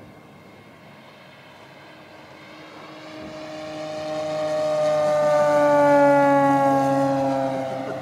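Electric RC AT-6 Texan model's Axi motor and 20-inch propeller whining on a pass overhead: faint at first, swelling loud about five to six seconds in with the pitch falling slowly as it goes by, then fading near the end.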